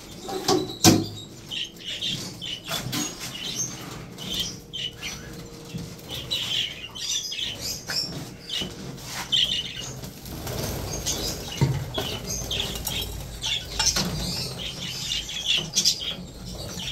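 A flock of budgerigars fluttering and chirping in a wire flight cage while a hand net chases them to catch them. Sharp knocks on the cage sound now and then, the loudest about a second in.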